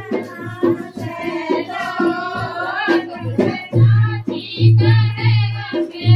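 Group of women singing a Hindi jachcha folk bhajan, with a beat underneath the voices.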